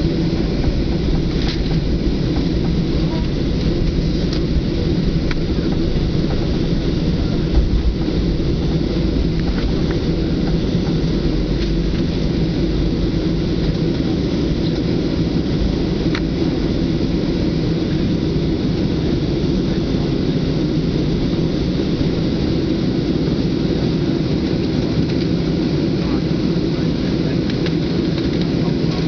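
Steady low rumble inside the cabin of a Boeing 737-700 taxiing, with its CFM56-7B engines at taxi power.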